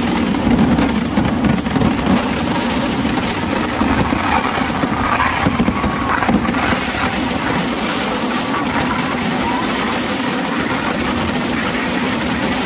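Fireworks barrage: firecrackers going off in rapid, unbroken succession so that the bangs merge into a continuous crackling roar. The sharpest cracks come in the first half, and it settles into a steadier rumble after about seven seconds.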